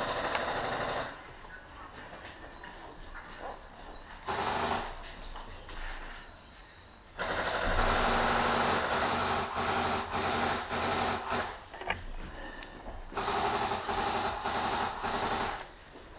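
Airsoft guns firing in rapid full-auto bursts, a mechanical rattle, with one long spell of fire from about seven seconds in to about thirteen and shorter bursts before and after.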